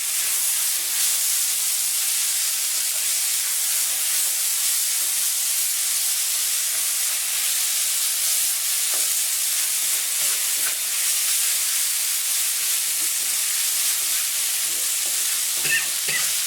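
Onion and tomato masala sizzling steadily in hot oil in a pan while being stirred, with faint scrapes of the spoon, as the tomatoes are sautéed down to a paste.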